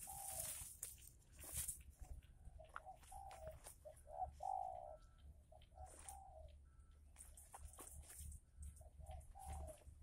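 Spotted dove cooing faintly in repeated short phrases, with the clearest phrases around the middle and again near the end.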